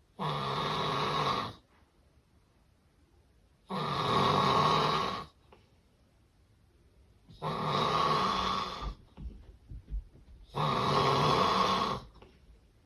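A person snoring: four snores, each about a second and a half long, one roughly every three and a half seconds, with quiet between them.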